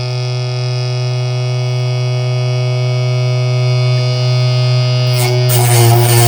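Homemade table saw's 775 DC motor and blade spinning at full speed with a steady, even whine. About five and a half seconds in, a rougher, noisier sound joins it.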